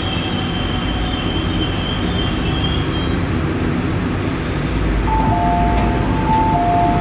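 CRRC Changchun C-train electric multiple unit braking to a stop. A high squeal fades out about three seconds in, over a steady low rumble. About five seconds in, a two-note chime starts, alternating higher and lower tones, with a few light clicks.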